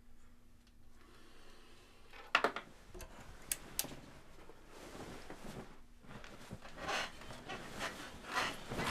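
Bedclothes rustling as a person climbs into bed and drags a blanket over himself, with two sharp clicks about three and a half seconds in as the bedside lamp is switched off.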